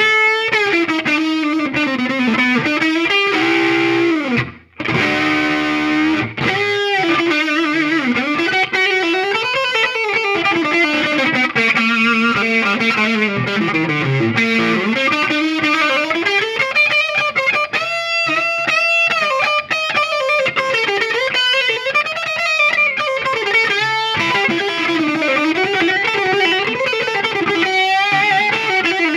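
Electric guitar (PRS CE24) played through the 1967 Marshall JTM50 valve head and a Fender cabinet with an Eminence speaker: continuous lead lines with many string bends and vibrato, and a brief break about four and a half seconds in.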